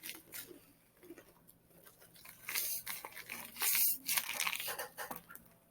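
A homemade squishy shaped like a McDonald's fries box being squeezed and handled: crunching and crinkling in several bursts, loudest in the second half.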